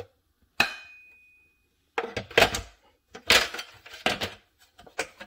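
Plastic rear cover of a SodaStream Fizzi soda maker being handled and fitted back onto the machine: a sharp knock about half a second in with a short ringing tone, then a run of clattering knocks and clicks as it is pressed into place.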